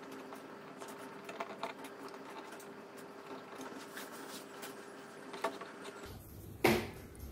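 Small irregular clicks and scratches of a thin metal spudger picking dust out of a laptop key socket, over a faint steady hum. A single louder knock near the end.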